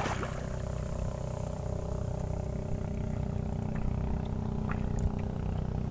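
A boat engine running steadily with an even low hum, with a few faint ticks of water.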